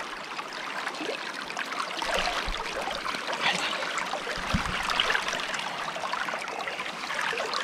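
River water running and splashing around the microphone, with a short low bump about four and a half seconds in.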